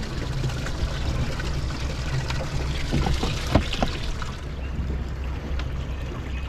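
Water lapping and splashing over a steady low rumble, with a few light clicks about three seconds in.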